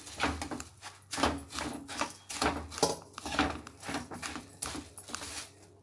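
Metal spatula stirring puffed rice into jaggery syrup in a non-stick pan: a quick, irregular run of scraping, rustling strokes, about two or three a second, that stops shortly before the end.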